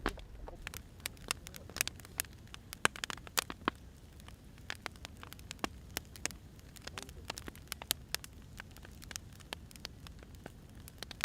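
Wood fire crackling: irregular sharp pops and snaps of burning wood over a soft low rumble.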